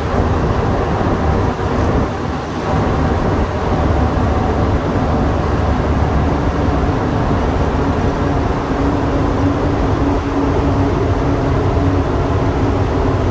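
Montreal Metro rubber-tyred train running at speed through a tunnel: a loud, steady rumble with a low hum that grows stronger about halfway through.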